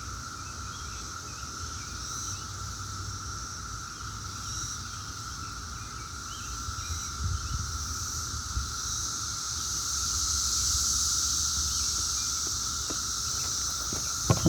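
Chorus of 17-year periodical cicadas (Brood X): a steady, continuous drone that swells somewhat louder in the second half.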